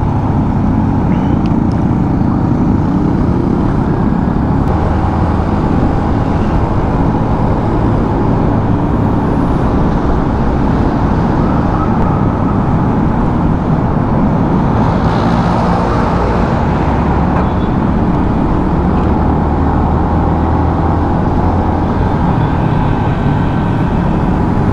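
Yamaha Sniper 150 motorcycle ridden at a steady road speed: its single-cylinder four-stroke engine running under a steady low rumble of wind on the microphone.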